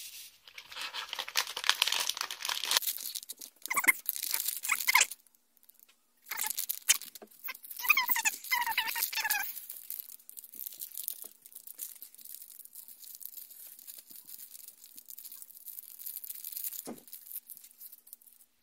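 Plastic packaging of a Nanoblock set being opened and handled: loud crinkling and tearing of the bag for the first five seconds, more crinkling with some squeaky rubbing from about six to nine seconds in, then quieter rustling of the small inner plastic bags of pieces.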